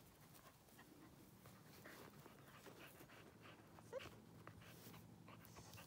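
Mostly quiet, with a few faint short whines from a Finnish Lapphund, the clearest a brief rising whine about four seconds in.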